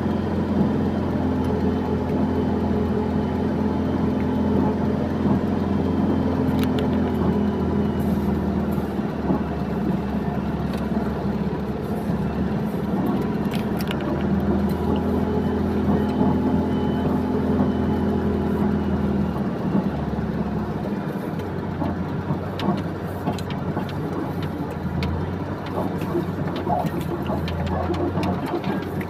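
Heavy diesel machinery engine running steadily with a low hum. Its pitch rises and eases off twice, in the first few seconds and again around the middle.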